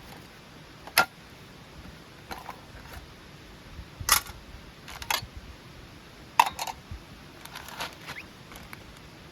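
A handful of sharp clicks and knocks, irregularly spaced, from objects being handled close by. The loudest come about a second in, around four seconds in and about six and a half seconds in.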